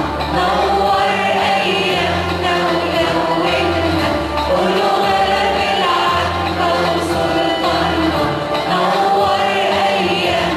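Church choir singing a Christian hymn with instrumental accompaniment, a sustained bass note changing about once a second beneath the voices.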